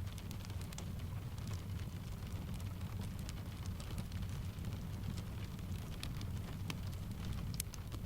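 Blended rain and fireplace ambience: steady rain with a low, even rumble underneath, and the fire's small sharp crackles popping irregularly over it.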